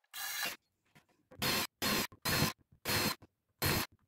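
Cordless drill boring holes into a wooden bed-frame panel, in about six short bursts that each stop abruptly.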